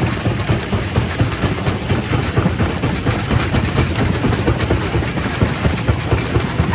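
Quarry primary rock crusher running and crushing stone: a loud, steady, heavy low rumble with a dense clatter of small knocks.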